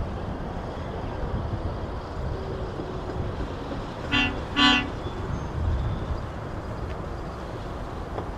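Hi-rail pickup truck's horn giving two short toots about four seconds in, over a steady low rumble.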